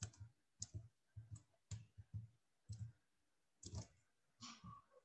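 Faint, irregular clicking of a computer mouse, about a dozen clicks, with a pause partway through.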